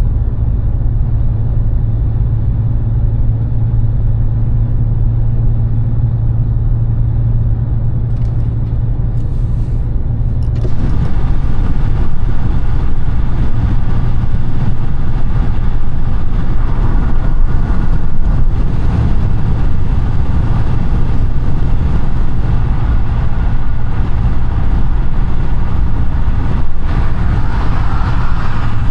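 Audi A5 (8T) driving: a steady low engine hum with road noise, which grows louder and brighter about a third of the way in and stays so.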